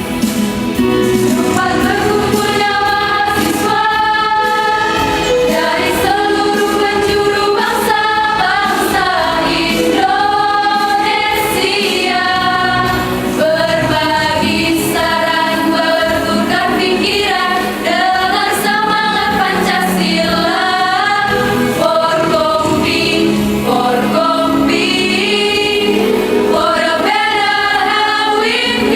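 A choir singing in Indonesian, held notes alternating with moving melodic phrases.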